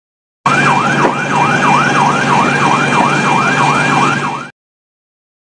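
Emergency vehicle siren in a fast yelp, sweeping up and down about three times a second over a steady engine hum. It starts abruptly about half a second in and cuts off about four and a half seconds in.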